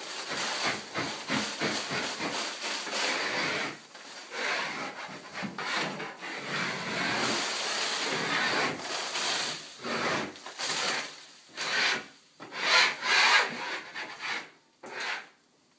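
Wide hand scraper blade scraping popcorn (stipple) texture off a drywall ceiling in many quick, irregular strokes, with a few louder strokes near the end.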